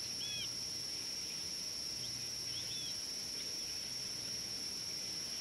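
A steady high-pitched insect drone outdoors, with a few short bird chirps near the start and again about two seconds in.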